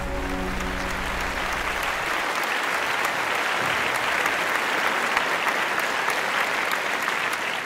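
Applause from a crowd, a steady dense clapping; the tail of some music fades out under it in the first second.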